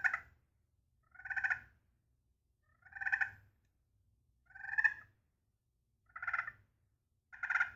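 Turkey pot call played with a softwood striker, making a series of five short purrs about a second and a half apart.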